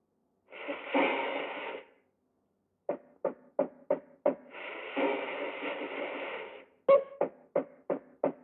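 Cartoon soundtrack music. A held chord of about a second is followed by five short detached notes, about three a second. A longer held chord then gives way to another run of short notes near the end.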